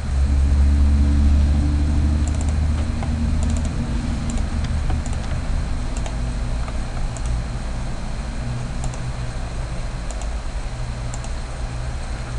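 Light computer mouse clicks, about one a second, over a low hum that starts suddenly, is loudest for the first few seconds and then eases off.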